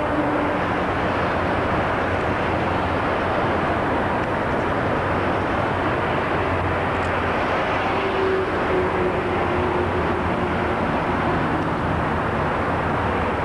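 Single-deck electric suburban train (a Sydney W set) approaching round a curve and running past, a steady rumble over its wheels and motors, with a faint, slowly falling whine about two-thirds of the way through.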